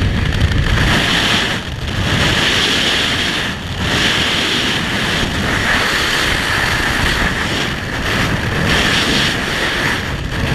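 Wind rushing over the microphone and water rushing past the hull of a small powerboat running fast, a steady loud hiss over a low rumble that dips briefly a few times.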